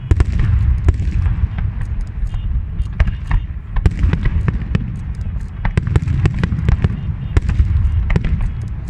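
Fireworks display: many sharp bangs and crackles in quick, irregular succession over a steady low rumble.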